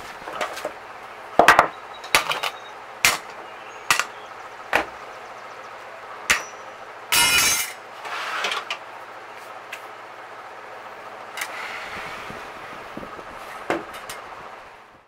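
Hand tools and a cordless drill being set down one at a time on a wooden workbench: a series of separate wooden knocks and metal clinks, about a dozen in all. There is a short scraping rustle about seven seconds in.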